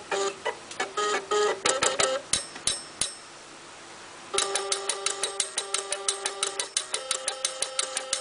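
Stepper motors playing a tune, each note a buzzy pitched tone with a clicky start. The melody stops about three seconds in, leaving only faint hiss, then resumes just over four seconds in as a fast, even run of short notes, about five a second.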